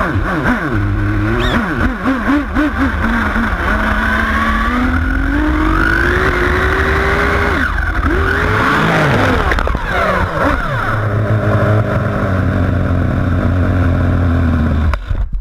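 Small two-stroke nitro engine of a radio-controlled car running and revving: its pitch climbs steadily for a few seconds, drops sharply about halfway through, rises and falls again, then holds high until the sound cuts off abruptly near the end.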